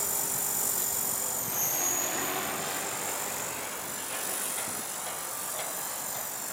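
Align T-Rex 450 electric RC helicopter in flight: a steady high whine from its motor and rotor over the hiss of the spinning blades. The whine's pitch dips briefly about one and a half seconds in.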